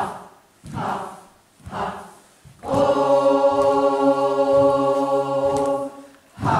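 Group chanting: short rhythmic vocal calls about once a second, with one long held note in the middle before the calls start again.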